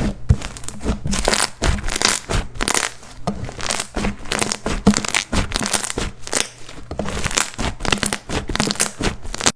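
Slime being squeezed and poked by hand, making a dense, irregular run of crackling, popping clicks that cuts off suddenly at the end.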